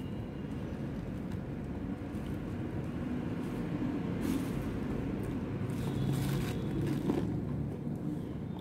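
Steady low background rumble, with a few short rustles and soft mouth sounds as a very ripe banana is peeled and chewed, the clearest about four, six and seven seconds in.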